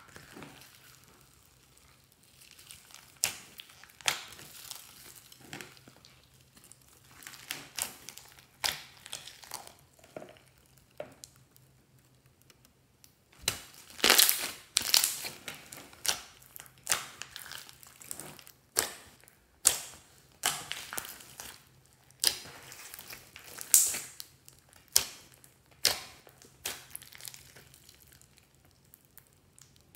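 Fluffy slime mixed with foam beads being squished and kneaded by hand, giving irregular sharp crackles and pops of trapped air and beads. The crackling comes thickest and loudest about halfway through, as a clear balloon is pressed down into the slime.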